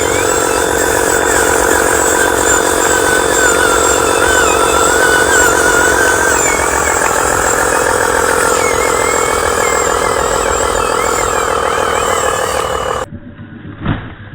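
RC model truck's electric drive motor and gears whirring steadily with a fast pulsing buzz. The sound cuts off abruptly about thirteen seconds in, and a single knock follows a second later.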